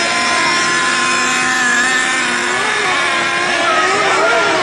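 Radio-controlled monster trucks racing on a dirt track, their motors whining and revving, the pitch rising and falling as they speed up and slow down.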